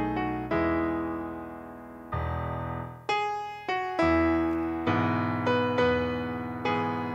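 Keyboard playing a hymn tune alone, with chords struck about once a second, each dying away.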